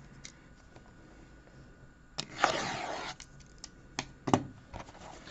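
Plastic shrink-wrap on a sealed trading-card box being scratched and torn open: a short rasping rustle about two seconds in, followed by a few sharp clicks as the box is handled.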